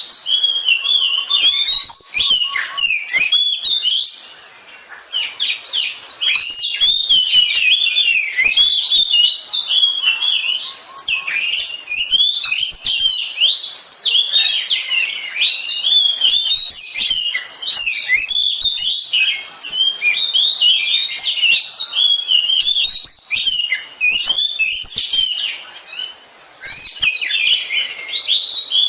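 Oriental magpie-robin (kacer) singing a continuous, rapid stream of varied whistles and chattering phrases, with a few short pauses, the longest about five seconds in.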